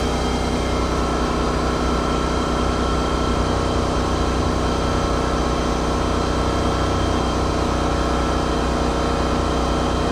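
A machine running steadily: a constant low hum with no change in speed.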